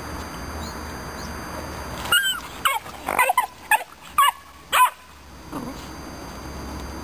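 Romanian Mioritic Shepherd puppy giving a quick run of about six short, high yelps and barks while scuffling with another young dog, starting about two seconds in.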